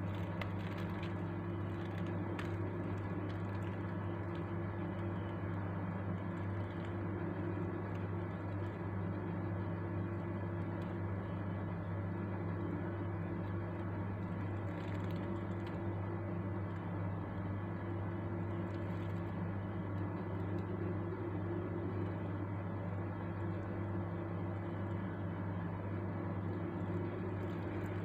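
Steady low mechanical hum, like a machine running, with a few faint steady higher tones over it.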